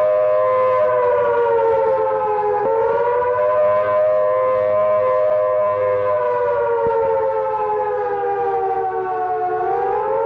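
Air-raid siren wailing as a warning of enemy aircraft. Its pitch sinks slowly, jumps back up about two and a half seconds in, swells and sinks again, and starts rising near the end.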